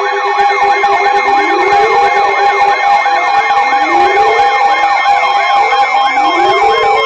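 Electronic sirens layered over a steady two-tone alert tone. A fast yelp sweeps up and down about three times a second, and a slower wail rises three times underneath.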